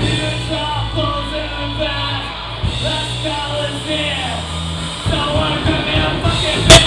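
Live rock band playing, with a singer over guitar and bass. A single sharp, loud crack comes near the end.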